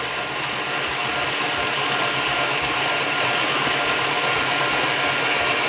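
KitchenAid Artisan stand mixer running steadily, its wire whip beating egg whites in a stainless steel bowl, with a fast, even pulsing in its whir.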